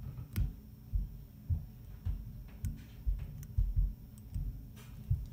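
Handling noise from a dubbing needle picking legs out of a fly's seal's fur dubbing while it sits in a tying vise: soft, irregular low thumps about twice a second, with a few faint sharp clicks.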